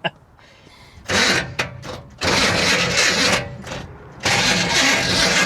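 Car's starter motor cranking the engine in three long bursts without it catching. The starter is dragging, which the owner puts down to it hanging up or not being shimmed properly.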